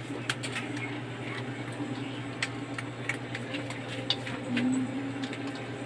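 Several cats eating dry kibble from bowls: scattered small crunches and clicks, with a steady low hum underneath.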